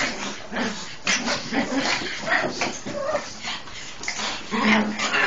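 Several Japanese Chins play-wrestling, giving a steady run of short, overlapping yips and whining sounds, several a second; these are play noises, not distress.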